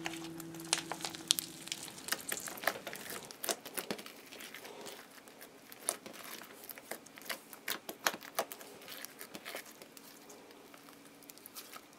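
Thick, chunky slime being squished and stretched by hand, giving off irregular sticky clicks and crackles.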